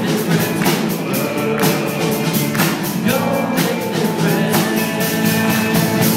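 Live band playing rock-style music: an electric guitar over a drum kit keeping a steady beat of about two hits a second.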